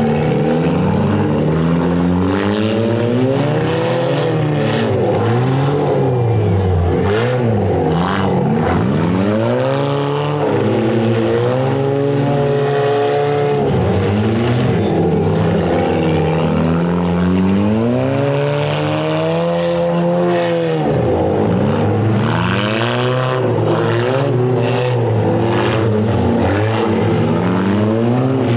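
Several stock front-wheel-drive race cars' engines revving hard and easing off as they race in a group, their overlapping pitches repeatedly rising and falling.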